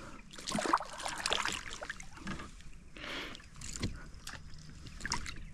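Irregular splashing and sloshing of water as a hooked sooty grunter is brought in and landed by hand, with a few knocks of handling.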